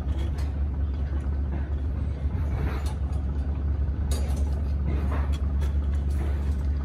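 A steady low hum throughout, with a few soft clicks and scrapes of steel binding wire being twisted around rebar stirrups with a hooked tying tool.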